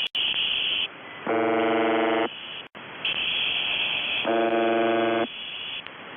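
UVB-76 'The Buzzer' shortwave time-marker signal as heard over a radio receiver: two harsh buzz tones, each about a second long and roughly three seconds apart. Between the buzzes there is a high-pitched hiss of noise.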